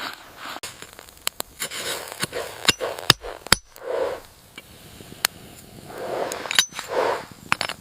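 Irregular sharp clicks and clinks, mixed with short crunching or scraping sounds.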